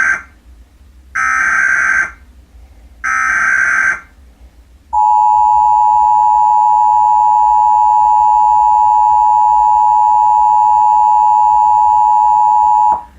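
Emergency Alert System SAME header: three short bursts of digital data screech about a second apart, the first already under way. Then the EAS two-tone attention signal (853 and 960 Hz together) is held steady for about eight seconds and cuts off sharply. Together they mark the start of an EAS required monthly test.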